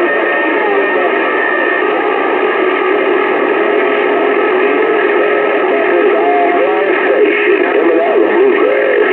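CB radio receiving a crowded band: several garbled, off-tune sideband voices overlap with steady heterodyne whistles under a layer of static. One whistle stops about two seconds in.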